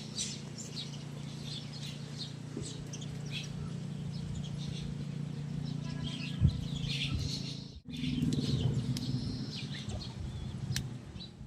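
Small birds chirping in many short, high calls over a steady low hum, with a brief dropout about eight seconds in.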